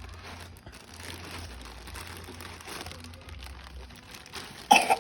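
Plastic packaging crinkling and rustling as a parcel is unwrapped, with one brief loud burst near the end.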